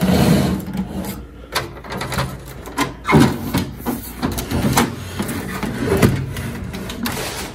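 A Power Macintosh G4 tower case being turned and slid by hand across a wooden desk: scraping and rubbing broken by several short knocks.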